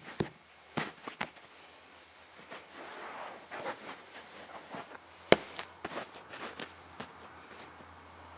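Handling and movement noise: scattered sharp clicks and taps with soft rustling, the loudest click a little past five seconds in.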